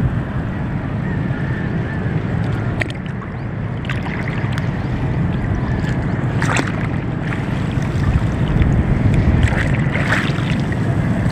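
Wind buffeting the microphone over open sea water, with water lapping and a few short sharp splashes.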